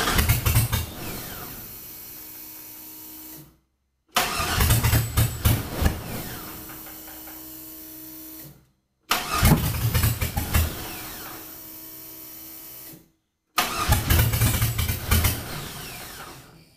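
LS V8 in a 1965 Chevrolet C10 pickup being cranked by its starter from a lithium jump starter on a very dead battery. There are four tries, each a loud burst of cranking that falls away to a steadier, lower running sound and then stops abruptly. The repeated cranking is enough to trip the jump starter's over-crank protection.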